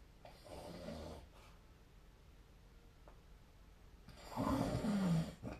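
A sleeping person snoring: a softer snore about half a second in, then a much louder snore about four seconds in whose pitch falls toward its end.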